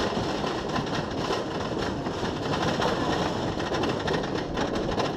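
Wooden roller coaster train climbing its lift hill: a steady mechanical clattering rumble from the lift and the wheels on the track.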